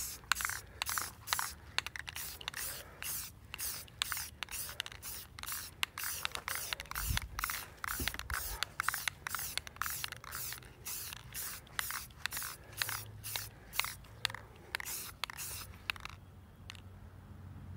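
Aerosol can of Ultra Cover paint-and-primer spraying in short, rapid hissing bursts, about two or three a second, which stop about sixteen seconds in.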